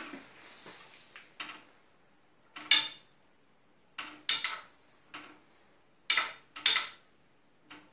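Sharp, irregular metallic clicks and knocks from the iron movement of a tower clock as a hand tool is worked against it. The pendulum is being brought back into its regular swing after being thrown out of it. The loudest click comes about three seconds in, with a close pair near the end.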